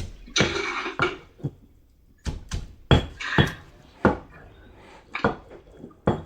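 Pestle knocking and thudding irregularly in a mortar as shredded green papaya and carrot are gently pounded and tossed for som tam, with a short rustling scrape about half a second in.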